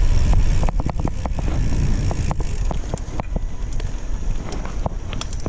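Wind rushing over the microphone of a moving bicycle rider, with frequent short, irregular clicks and rattles from the bike.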